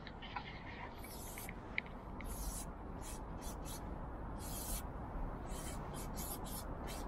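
Aerosol spray paint can hissing in a string of short bursts of varying length, over a steady low rumble.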